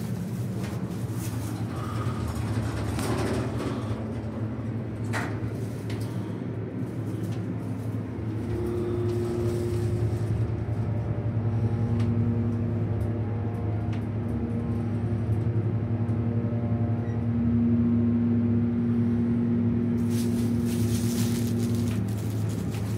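Montgomery hydraulic elevator ascending, heard from inside the car: a steady low hum of the pump and motor, joined about eight seconds in by a steady whine that holds until near the end. There is a single click about five seconds in, and a rush of noise near the end.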